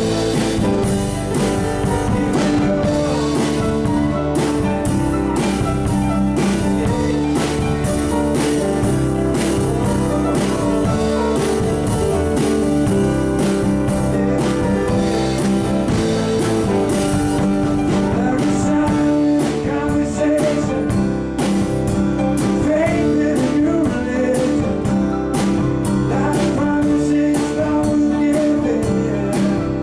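A live band playing a rock song, with guitar over a steady drum beat.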